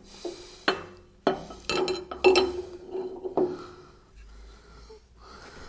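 Steel wrench clinking against the spindle and nut of a Pannhans spindle moulder while the spindle is being tightened: about five sharp metal clanks in the first three and a half seconds, each ringing briefly.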